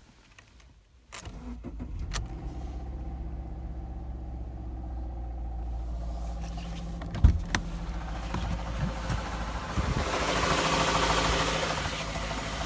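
Subaru FB25 2.5-litre flat-four engine in a Forester SJ starting about a second in and then idling steadily, with one loud thump about six seconds later. This is the engine the owner records for an unexplained knock.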